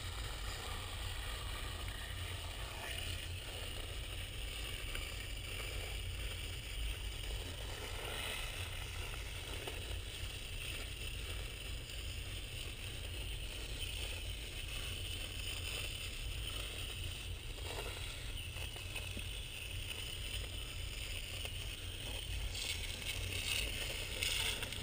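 Coil cleaner being sprayed onto an air conditioner's evaporator coil and foaming on the dirty fins: a faint steady hiss over a low rumble, swelling a few times.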